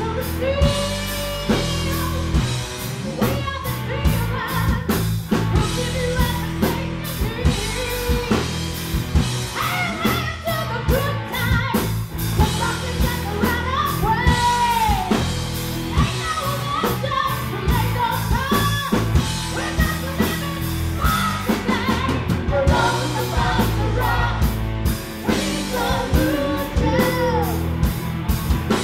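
Live rock band playing: a woman singing lead over electric guitars, bass guitar and a drum kit.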